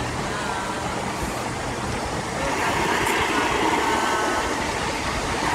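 Miniature passenger train running along its track, heard from a seat aboard: a steady noise of the wheels on the rails, growing slightly louder a little over two seconds in.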